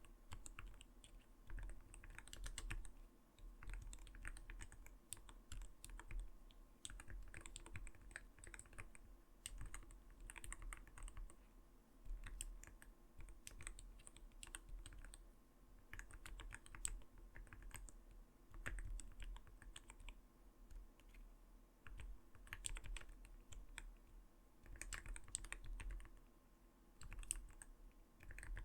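Typing on an Arbiter Studio Polar 65 Phantom mechanical keyboard: runs of soft, not-too-light 'kotokoto' keystrokes in bursts, with short pauses between them.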